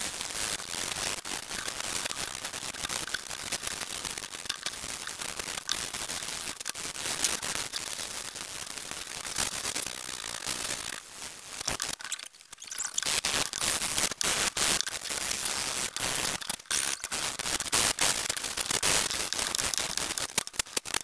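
Hand touch-up sanding of a CNC-cut Baltic birch plywood sign with a sanding sponge: a steady scratchy scraping of quick back-and-forth strokes, with a short pause a little past halfway.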